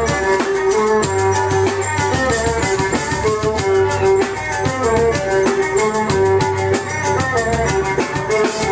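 Live instrumental music from a violin, drum kit and keyboard trio: a fast, steady drum beat under a held, wavering melody line and a bass part.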